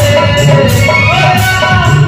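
Devotional kirtan music: a man singing a gliding melody through a microphone, with slung barrel drums and a steady beat of small hand cymbals.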